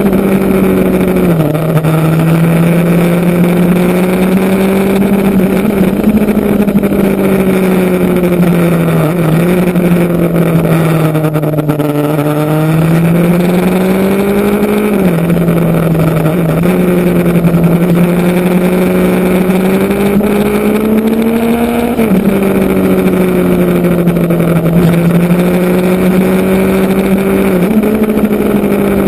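Motorcycle engine running under way. Its pitch climbs slowly and drops suddenly several times as gears change, and dips and recovers about twelve seconds in.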